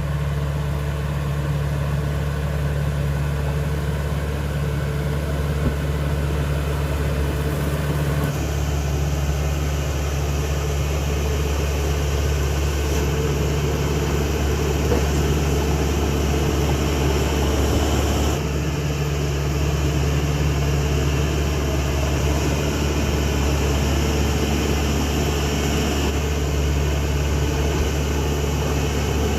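Caterpillar D5K XL bulldozer's diesel engine running steadily, a constant low hum, with its tone shifting slightly about eight and again about eighteen seconds in.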